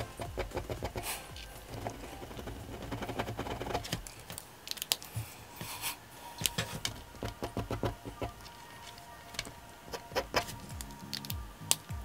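Quick pen strokes scratching and tapping on paper as ink lines and hatching are laid down, in short irregular clicks, over background music.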